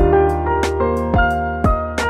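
Background music: piano or keyboard chords over a steady beat with a kick drum about twice a second.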